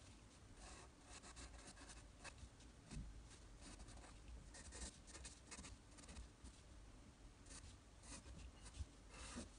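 Faint pencil scratching on paper in many short, quick sketching strokes.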